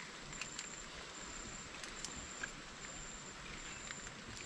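An insect calling in a run of short, high-pitched buzzing pulses, a little more than one a second, over a background hiss. A few light clicks and rustles sound along with it.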